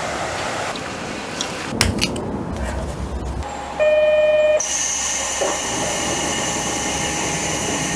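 Train sounds in quick cuts: a train running, with a short pitched beep about four seconds in, followed by a steady high whine over the running noise.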